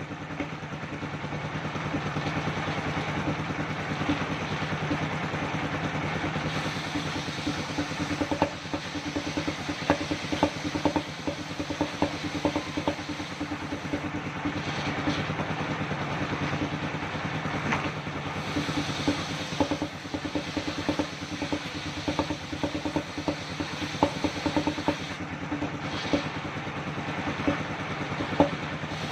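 Engine-driven circular sawmill running: a steady engine hum with scattered knocks and clatter throughout.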